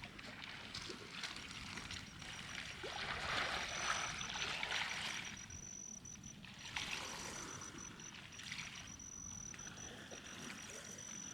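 Water of the Castanhão reservoir washing and lapping in small waves that swell and ebb every few seconds. A thin, steady high-pitched tone runs along with it from about a third of the way in.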